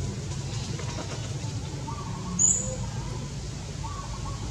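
Outdoor ambience: a steady low hum under faint, wavering bird-like calls, with one short high chirp about halfway through as the loudest sound.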